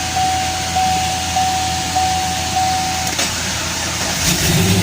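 Chevrolet Camaro's chime pulsing steadily, then a click about three seconds in, and the engine cranks and catches near the end, settling into running: the car now starts after its no-crank, no-start fault.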